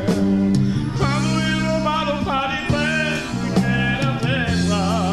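Romani song: a solo voice singing a wavering, heavily ornamented melody that comes in about a second in, over a backing with steady bass and a regular drum beat.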